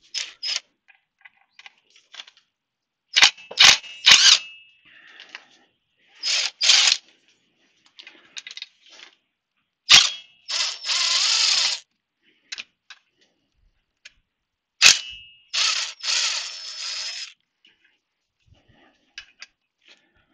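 Cordless driver run in short bursts of one to two seconds on the screws of a BSA B50's primary chain case cover, with sharp metallic clicks between the bursts.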